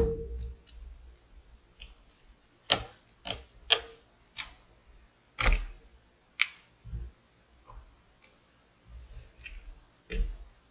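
Irregular sharp clicks and taps, about eight spread over several seconds, from prying tools and the phone being handled while its cracked rear glass is worked loose.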